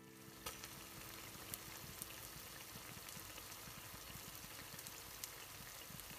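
Pork Bicol Express in coconut milk simmering and sizzling in a frying pan: a faint, steady bubbling crackle with scattered sharp pops. The coconut sauce has cooked down until the oil separates.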